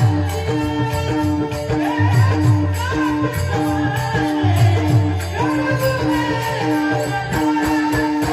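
Music from a Marathi devotional song: a melody that slides up and down over a short note repeating about twice a second, with a low drum beat coming in groups.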